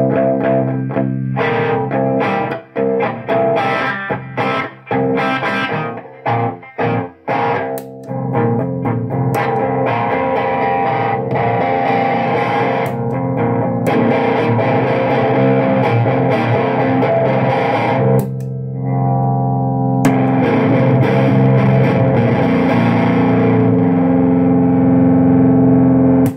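Electric guitar played through an Enchanter FX Portal Deluxe pedal with its fat (frequency) knob on the thinnest setting, into a small Orange-style amp: distorted chords, short and choppy for the first several seconds, then sustained strumming, ending on a held chord.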